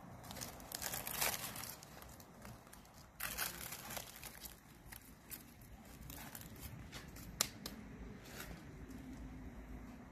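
Grill-charred banana leaves crinkling and tearing as hands pull open a leaf-wrapped parcel, in uneven bouts of rustling, the loudest about a second in and another about three and a half seconds in.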